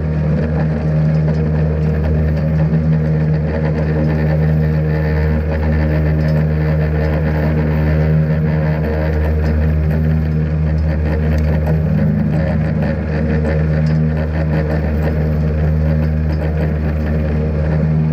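Salt Dogg SHPE2000 V-box salt spreader working from the back of a slowly moving truck: a steady low mechanical drone from the truck and the spreader running together.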